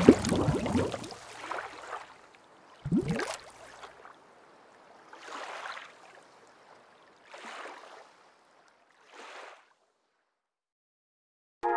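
Logo sound effects: a liquid splash with dense crackling spray, then a sharp hit with a deep falling sweep. Three whooshes follow, each fainter than the last like an echo, and electronic music cuts in right at the end.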